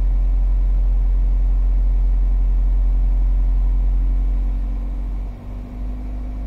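Ford EcoSport diesel engine idling with the AC running, heard inside the cabin: a steady low hum with the air-conditioning blowing through the dash vents. The hum drops in level about five seconds in.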